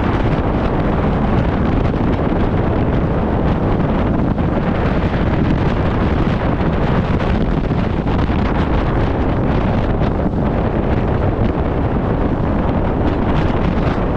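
Steady wind rushing over the microphone on the bow of a bass boat running at speed, with the outboard motor and water noise mixed in underneath.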